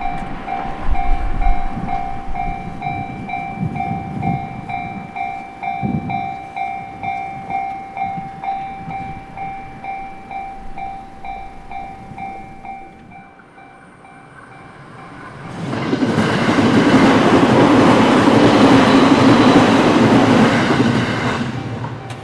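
Japanese level-crossing electronic warning bell dinging about twice a second over a rumble of rail traffic. It fades out after about thirteen seconds. Then an electric train passes loudly through the crossing for about six seconds before falling away near the end.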